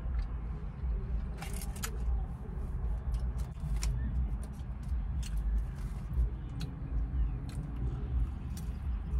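Fork clicking and scraping against a takeout container of cheese fries, with paper-bag rustles, then mouth sounds of eating, over a steady low rumble in a car cabin.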